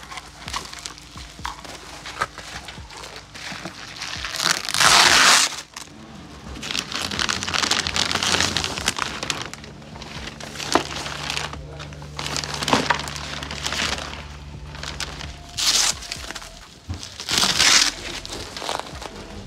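Bubble wrap and plastic packaging being pulled and crumpled by hand, in several bursts of crinkling, the loudest about five seconds in.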